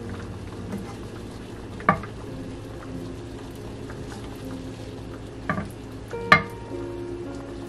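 Coconut milk simmering with a low sizzle in a frying pan as pieces of fried tuna are laid into it, with three sharp knocks, the loudest about two seconds in and just after six seconds.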